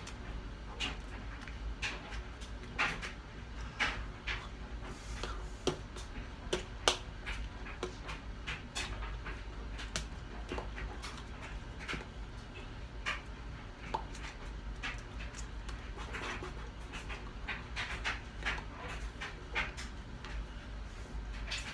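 Irregular soft taps and brushes of hands against each other and against the chest during sign language, a few short clicks a second, over a steady low hum.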